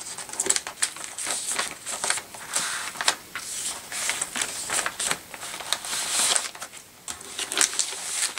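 Clear plastic page protector crinkling and rustling as a 12x12 scrapbook layout of paper and card is slid into it, with irregular crackles and scrapes of card against the plastic.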